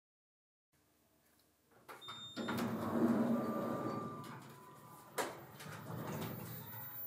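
Elevator's sliding doors running after a silent start, beginning about two seconds in, with a sharp knock partway through and another about five seconds in.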